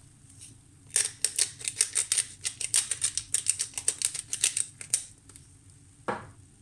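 Hot fat crackling and popping in a frying pan under an egg-and-cheese toast: a quick run of sharp pops for about four seconds, then one brief sound falling in pitch near the end.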